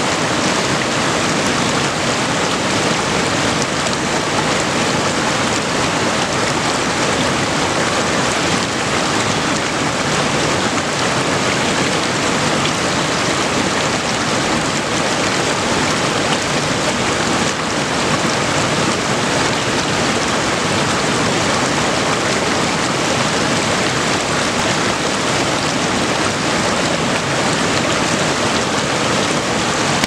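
Stream water rushing past close by, a steady, even rush with no break.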